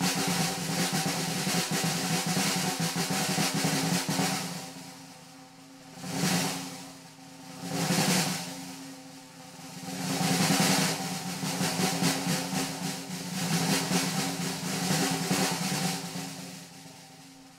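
Jazz drum kit played with sticks in free improvisation: fast, dense rolls across snare, toms and cymbals that swell and fade in several waves, over a steady low tone.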